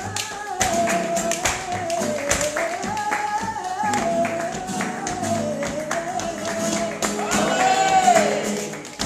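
Flamenco cante por bulerías: a singer holds long, ornamented, wavering lines over flamenco guitar and sharp rhythmic hand-clapping (palmas). The voice swells to its loudest held note near the end.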